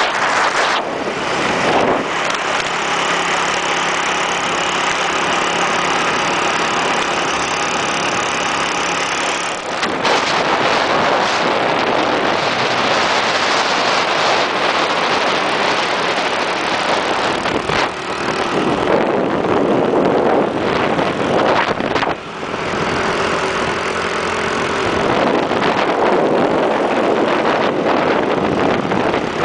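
Motorbike engine running steadily while riding along a road, with wind rushing over the microphone. The engine's hum stands out clearly in the first third and again about three-quarters of the way in; the wind rush covers it in between.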